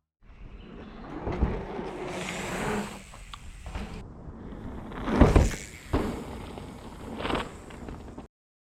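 Mountain bike ridden on a trail: plus-size tyres rolling over dirt with wind noise and rattling, and heavy thumps about a second and a half in and, loudest, about five seconds in. The sound cuts off suddenly just before the end.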